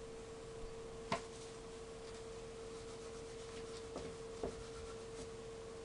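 A small 3D-printed plastic piece being rubbed on wet 1200-grit sandpaper, a faint scratchy rasping as its layer lines are sanded down. A sharp tap comes about a second in and two soft knocks around four seconds, over a steady hum.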